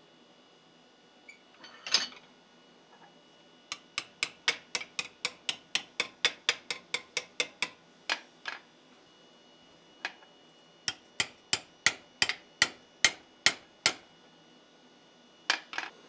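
Hand hammer striking a forged steel spatula blade clamped in a vise: sharp metal-on-metal blows in quick runs of about four a second, with short pauses between the runs.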